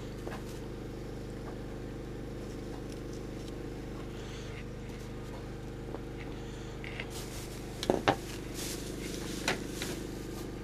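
Propane generator's engine running with a steady low hum, and a few sharp clicks and knocks a little past halfway.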